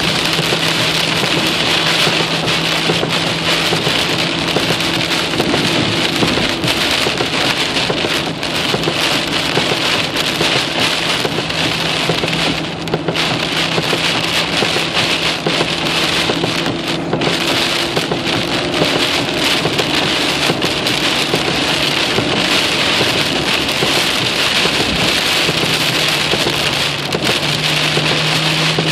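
Heavy rain falling steadily in a thunderstorm, with a faint steady low hum underneath.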